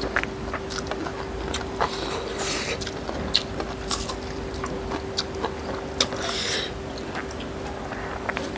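Close-up mouth sounds of people eating with their hands: wet chewing clicks and lip smacks, with a couple of short hissing breaths or slurps. A faint steady hum runs underneath.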